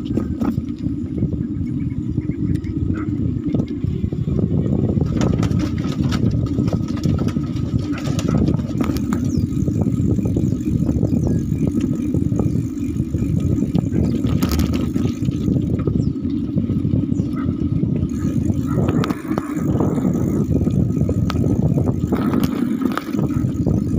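Steady low rumble of a moving vehicle riding over a rough road, mixed with wind buffeting the microphone, holding at an even level throughout.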